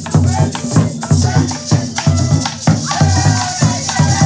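Colombian folk percussion: drums struck with sticks keep a quick, steady beat, and a maraca shakes along with it. A melody line runs over the top.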